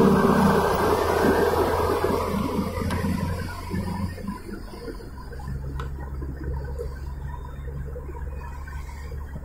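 Car engine hum and tyre road noise heard from inside the cabin while driving on a highway. A loud rushing is strongest at first and dies away over the first few seconds, leaving a steadier, quieter low hum.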